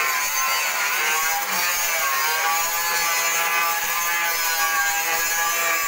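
Electric angle grinder running, its motor whine steady with a slight waver in pitch.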